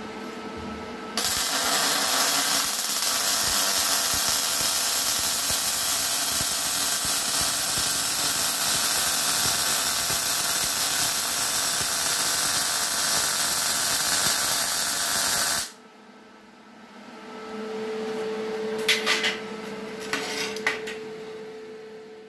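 Cigweld WeldSkill 185 gas-shielded MIG welder arc welding steel: the arc strikes about a second in, crackles and hisses steadily for about fourteen seconds, then stops abruptly. A fainter steady hum with two clicks follows.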